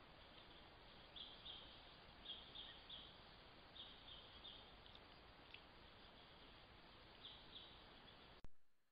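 Steady faint hiss from a trail camera's microphone, with soft high chirping calls coming in quick runs of two or three, several times. A sharp click near the end as the recording cuts off.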